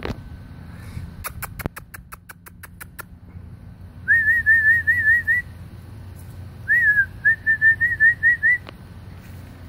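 A person whistling a warbling call in two phrases of about a second and a half each, the pitch wavering quickly up and down. Before the whistling comes a quick run of about ten sharp clicks.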